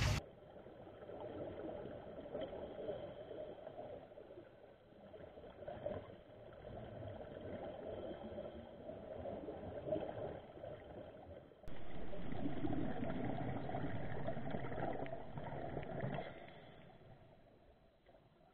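Muffled underwater sound through a waterproof camera housing: water bubbling and gurgling around scuba divers, swelling and fading every few seconds. It jumps louder after a cut about two-thirds in, then fades out near the end.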